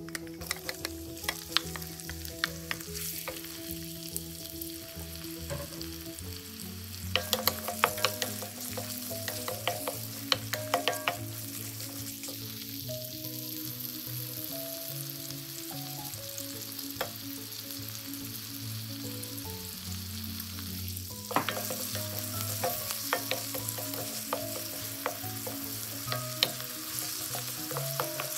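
Chopped onion sizzling in hot oil in a stainless steel wok, stirred with a wooden spoon. The sizzle swells about a third of the way in and again about three quarters in, each time with clusters of clicks and scrapes from the spoon against the pan.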